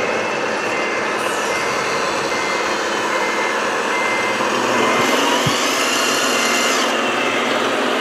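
Radio-controlled scale dump trucks running: a steady whine and hiss of small motors and gearing, with a reversing beeper giving a regular series of short beeps and a single click about five seconds in.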